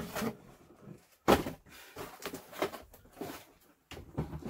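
Clear plastic storage bins full of packaged soft-plastic baits being handled and set down: a series of knocks and clatters, the loudest a little over a second in.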